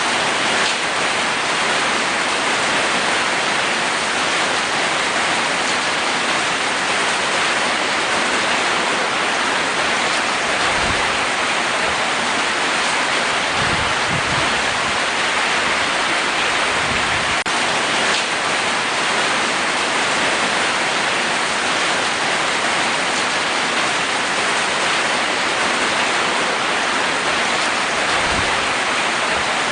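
Rain falling steadily on a roof, a dense, even hiss with a few faint low thumps.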